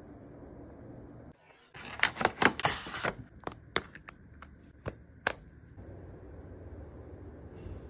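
Grey plastic case being pressed and snapped onto an iPhone 13: a quick run of sharp clicks lasting about a second, then five single clicks as the edges seat, over a steady low hiss.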